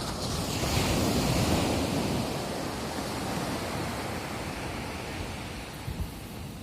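Surf on a beach: a wave breaks and washes in, loudest about a second in, then slowly fades away.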